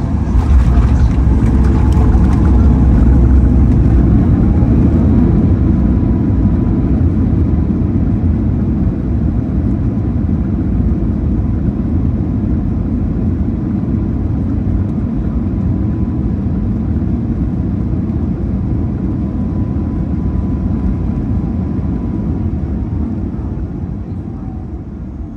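Boeing 737 MAX 8-200 heard from inside the cabin during the landing roll: a loud rumble of the engines and wheels on the runway. It swells just after the start, stays loudest for about five seconds, then slowly dies down as the jet slows. A faint steady whine runs through the middle.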